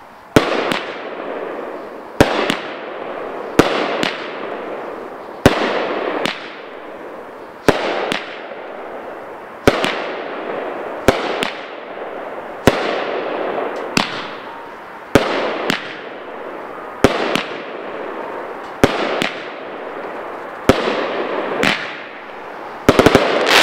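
A 16-shot consumer fireworks cake ("Go Hard or Go Home") firing its sequence: a sharp report every second or two, often two close together, each trailing off into a noisy tail. A quick cluster of reports comes near the end.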